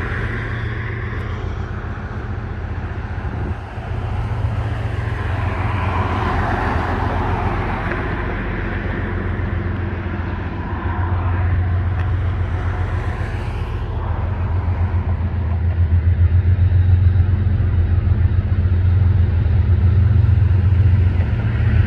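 CSX freight train passing: a steady low rumble of diesel locomotive and wheels on the rails. It gets louder from about two thirds of the way in, with a fast throbbing.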